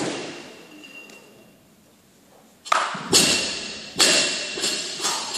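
A series of sharp knocks in an echoing sports hall, each followed by a high metallic ring that dies away. The first, loudest, opens the sequence; five more come in quick succession about three to five seconds in.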